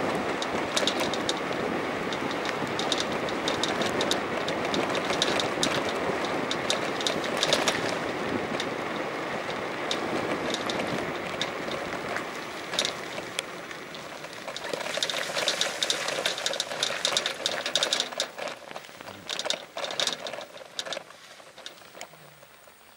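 Rain falling: a dense, steady hiss that eases after about twelve seconds, leaving sharp pattering drops that thin out and fade near the end.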